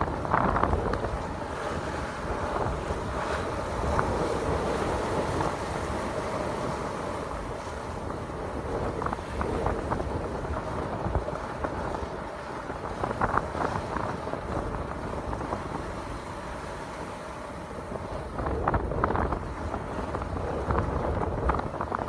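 Wind buffeting the microphone and rough sea rushing past the hull of a Luffe 37 sailing yacht under way, rising and falling in gusts, with a faint steady hum underneath.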